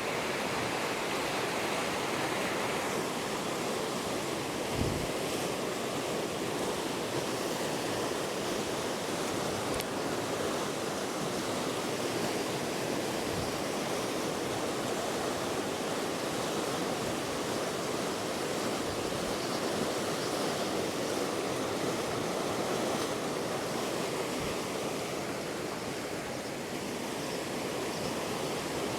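Steady rush of water from a river waterfall, with a brief low thump about five seconds in.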